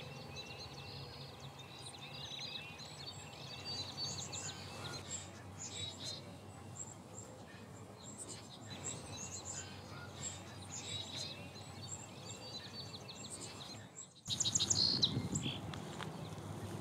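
Rural outdoor ambience: many small birds chirping and calling over a steady low rumble. About fourteen seconds in, the sound drops out for a moment and comes back louder.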